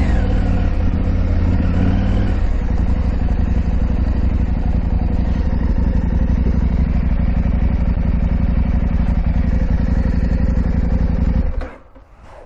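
KTM 890 Adventure R's parallel-twin engine running at a steady speed while riding. The sound cuts off suddenly near the end.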